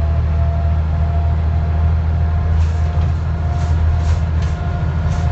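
Scania N94UD double-decker bus running under way, heard from inside the rear of the passenger saloon: a steady low engine drone with a faint steady whine over it. A few brief hissy sounds come in the second half.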